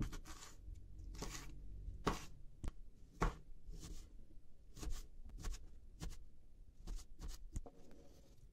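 A kitchen knife chopping a green sivri pepper on a plastic cutting board: uneven knife strokes knocking on the board, about one or two a second. A brief scrape near the end as the chopped pepper is pushed off the board.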